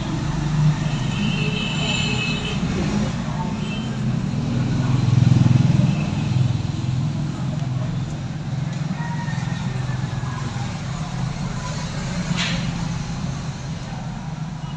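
Low rumble of motor traffic, swelling about five seconds in, with a single light click near the end.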